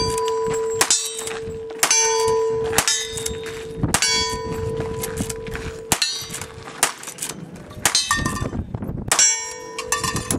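Lever-action rifle firing a string of shots about a second apart, with a short pause near the middle. Each shot is followed by steel targets ringing with a clang.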